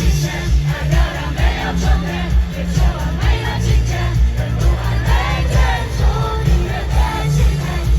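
Live pop concert heard from within the audience: a song with a heavy, steady bass beat and a female voice singing, with crowd noise mixed in.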